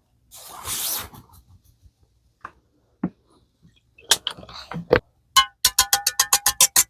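A few knocks and some rustling, then, from about five and a half seconds in, eggs being beaten fast in a bowl for steamed egg. The strokes are even, about six a second, and the bowl rings with each one.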